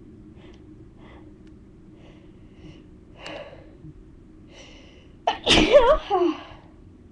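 A woman's loud induced sneeze about five seconds in, a sharp burst that trails into a voiced "atchoo". Before it come several short, faint intakes of breath as the sneeze builds.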